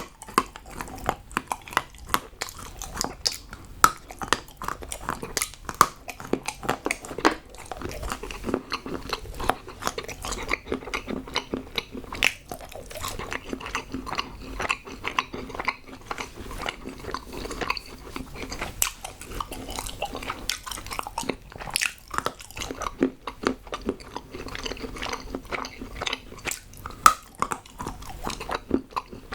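Close-miked biting and chewing of hard shaped chocolate, with many sharp snaps and crunches as pieces break between the teeth.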